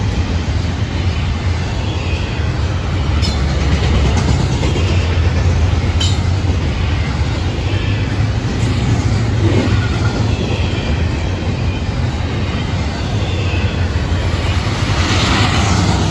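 Double-stack intermodal freight train's container well cars rolling past: a steady low rumble of steel wheels on rail, with a few sharp clicks.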